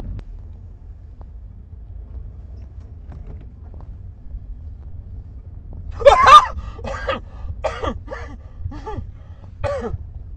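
Low, steady road noise inside a moving car's cabin. About six seconds in, a man lets out a loud startled yell, followed by five shorter frightened cries and gasps over the next few seconds.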